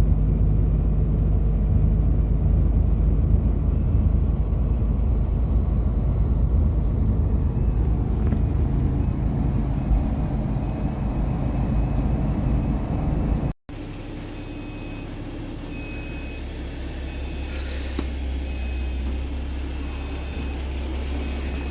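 Truck running with a loud, low rumble. After an abrupt cut about halfway through, a quieter steady engine hum continues with a short beep repeating about once a second.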